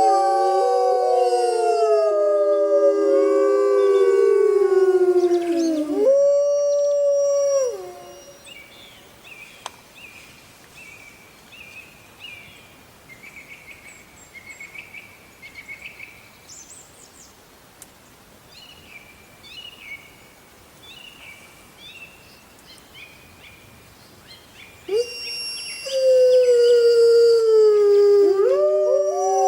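A pack of wolves howling in chorus, several long howls overlapping and sliding down in pitch. About eight seconds in the chorus breaks off into a much quieter stretch of short, high calls, and the howling starts again near the end.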